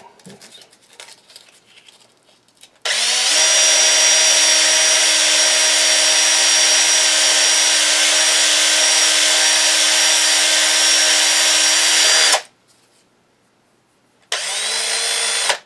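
Cordless drill spinning a barrel trimmer's steel shaft while sandpaper is held against it to clean it. The motor whine rises as it starts about three seconds in, runs steadily for about nine seconds and stops, then a second short run of about a second comes near the end.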